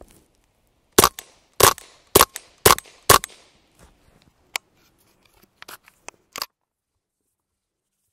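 Five suppressed .22 LR subsonic shots from a semi-automatic Ruger 22 Charger through an Acadian Armament Lynx suppressor, fired about half a second apart, each a sharp crack. A few much fainter clicks follow about two to three seconds later.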